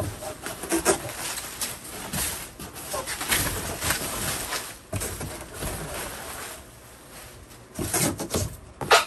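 Plastic bubble wrap rustling and crinkling as it is pulled out of a cardboard box, in irregular crackly handfuls. It eases off about two-thirds through, then comes back louder near the end.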